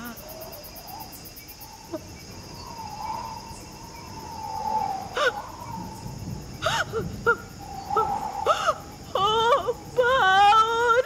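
Steady cricket chirring under a high, wavering crying voice: drawn-out whimpering wails in the middle, breaking into loud, repeated sobbing cries near the end.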